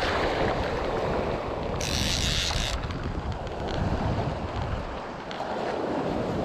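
Wind buffeting the action-camera microphone over shallow sea water, with a sharper burst of hiss about two seconds in that lasts about a second.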